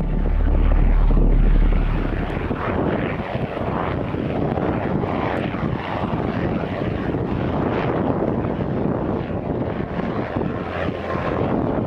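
Helicopter flying past low, a steady rotor and engine noise, with a deep low rumble in the first two seconds.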